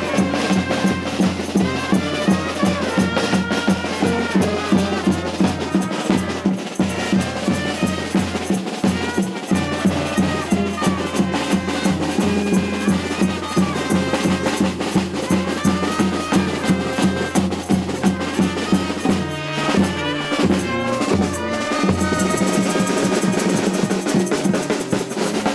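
Music with a steady drum beat and bass, cutting off abruptly at the end.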